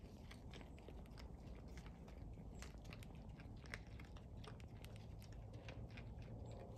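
Hogs crunching and chewing feed on the ground under a feeder: faint, irregular crunches several times a second.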